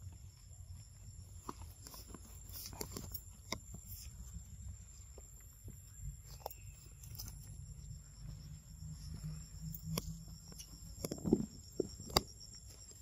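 Quiet outdoor ambience: a steady high insect drone, with scattered light steps, rustles and clicks in leaf litter and on stone, and a few louder knocks near the end.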